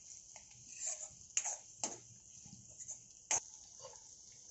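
Spatula stirring tomatoes in a kadhai, knocking against the pan in a few sharp, scattered taps with soft scraping between them.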